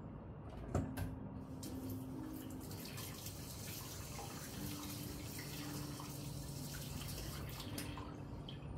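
Tap water running into a wash basin and splashing over bare feet being washed, starting about a second and a half in and easing off near the end. Two short clicks come just before the water starts.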